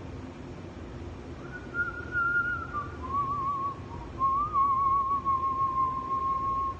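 A man whistling a short tune, starting about a second and a half in: a higher held note, then a lower, wavering run of notes. A steady low hum runs underneath.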